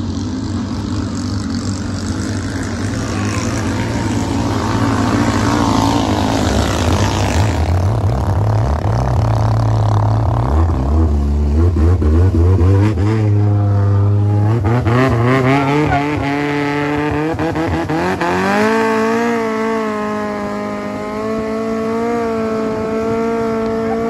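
A longtail boat's Toyota 4A-GE inline-four, fitted with individual throttle bodies and a two-foot exhaust pipe. It runs at low revs, then about two-thirds of the way through revs up, rising steadily in pitch, and holds at high revs.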